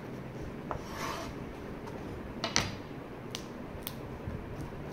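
Scattered light taps and rubbing on a plastic cutting board as cut long bean pieces and a kitchen knife are handled and set down.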